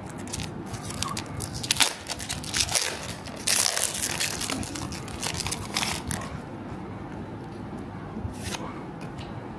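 Foil booster-pack wrapper of Pokémon trading cards crinkling and tearing open in the hands, loudest about three and a half seconds in, then quieter handling of the wrapper and cards with a few crinkles.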